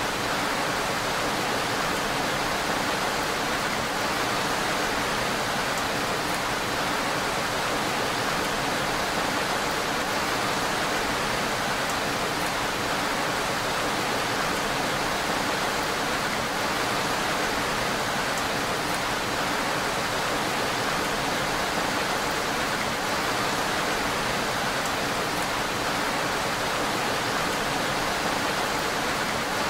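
Steady rain sound, an even, unbroken hiss of falling rain with no separate drops or thunder standing out.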